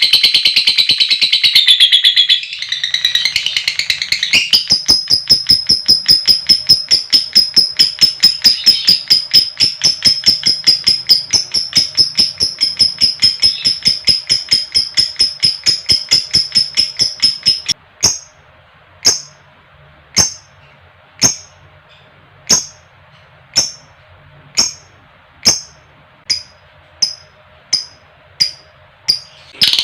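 Lovebird calling: a dense, high chatter that breaks off about two seconds in, then a fast, even run of sharp high chirps, several a second, for over ten seconds. Then come single sharp chirps about a second apart, quickening slightly near the end.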